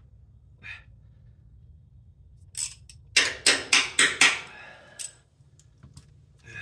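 A hand wrench clinking against metal hardware at the rear axle and brake backing plate of a 1960 GMC truck: a quick run of about six sharp metallic clinks, about four a second, starting about two and a half seconds in, with one more near the end.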